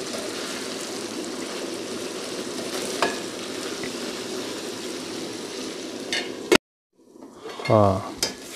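Boneless chicken pieces frying in oil in an aluminium pot, sizzling steadily while being stirred with a metal spatula, with one sharp tick about three seconds in. The sound cuts off suddenly about six and a half seconds in.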